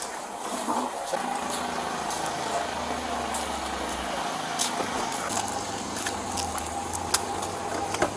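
Body-worn camera rubbing and rustling on the wearer's uniform while walking, with a steady low vehicle-engine hum and scattered light clicks.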